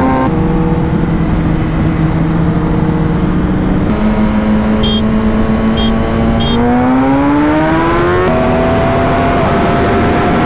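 Inline-four superbike engines, a Yamaha R1M and a Kawasaki Ninja ZX-10R, running hard at highway speed, heard from the rider's seat with wind rush; the engine note jumps abruptly a few times between clips and rises steadily as the bike accelerates about two-thirds of the way through. Three short high beeps sound in the middle.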